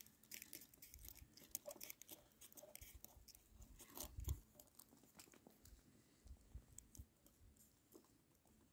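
Faint handling noises: scattered small clicks and crunches as hands work an ice-fishing tip-up's frame, spool and line, with a soft thump about four seconds in.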